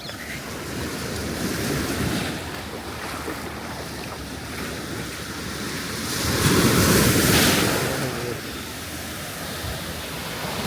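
Surf breaking and washing on a beach, one wave swelling loudest about two-thirds of the way through, with wind on the microphone.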